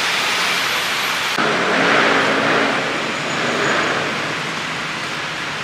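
Tap water running and splashing into a plastic basin full of leafy greens while hands swish the leaves around: a steady hiss.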